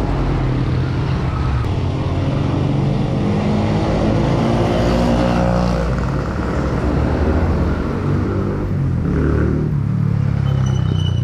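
A motor vehicle's engine running close by in road traffic, loudest midway, over a steady low rumble of wind on the microphone of a moving bicycle.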